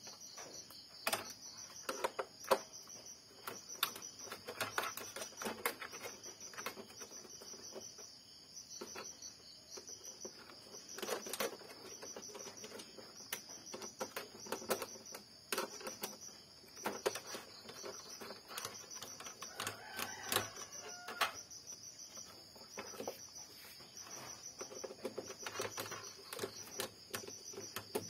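Scattered light clicks, taps and scrapes of a screwdriver and fingers on the plastic and metal frame of an opened Epson inkjet printer while screws are worked loose, one of them stubborn and not coming out.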